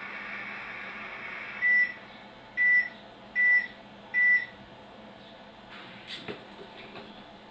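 Toy microwave oven's running hum, which stops and gives way to four short, evenly spaced beeps to signal the heating cycle is done. A few light clicks follow near the end.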